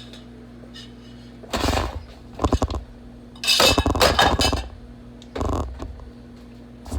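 Pots, lid and utensils clinking and clattering in four short bursts as cookware is handled at the soup pot.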